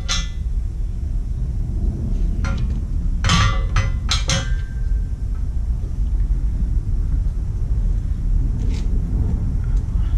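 Steady low rumble, with a few short clinks and clicks about three to four seconds in and one more near the end, as wrapped scooter frame parts are handled and unwrapped.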